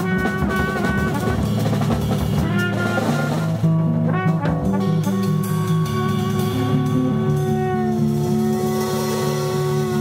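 Live jazz trio: a cornet plays a run of short notes, then holds one long steady note from about six seconds in, over electric bass guitar and a drum kit.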